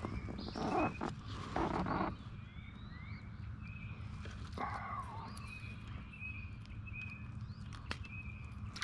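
A small hooked fish splashing at the water's surface beside the kayak for the first couple of seconds. Then a bird repeats short high chirps over a steady low rumble, with a couple of sharp clicks near the end.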